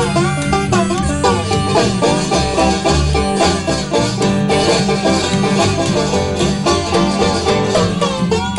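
A bluegrass string trio playing live: banjo picking over acoustic guitar and a steady upright bass line, with a harmonica carrying a melody that bends and slides in pitch.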